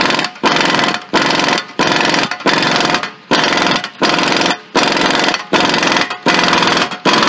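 Impact wrench hammering in short bursts, about ten in a row with brief pauses between, as it drives the screw of a C-frame ball joint press to push a new ball joint into the steering knuckle.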